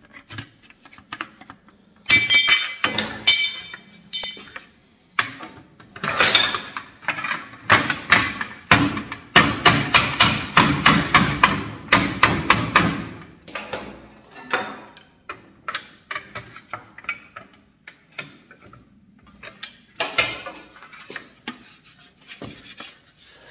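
Hammer striking a sheet-metal balcony cover on a wooden board, folding over the tab at the butt joint. Sharp metallic blows come in quick runs, several a second, densest through the middle, with a few lighter taps later.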